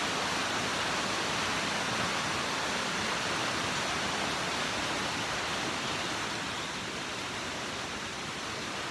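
A fast-flowing river rushing steadily, getting a little quieter about two-thirds of the way through.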